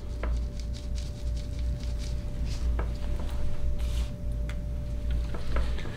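Ground peanut shells sprinkled by hand onto vegetable scraps and compost in a worm bin: faint, scattered pattering with a few light ticks.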